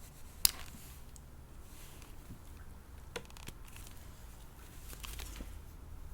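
Hands handling a plastic doll and its small parts: one sharp click about half a second in, a fainter click near the middle, and light rustling.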